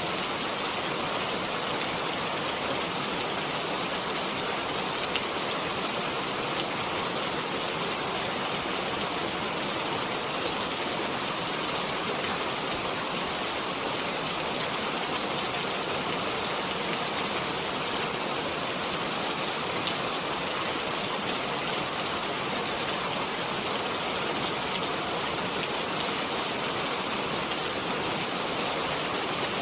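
Steady rainfall, drops pattering on a surface in an even hiss, with a few sharper drop ticks.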